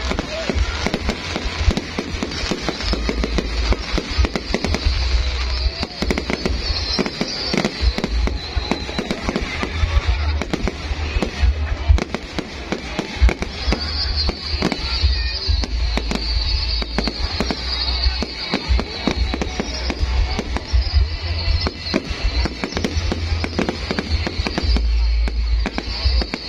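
Fireworks going off continuously, a dense run of sharp bangs and crackles over a deep low rumble.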